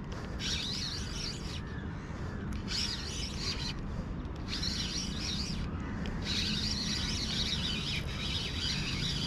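Birds chirping and chattering in four bursts, the longest near the end, over a steady low hum.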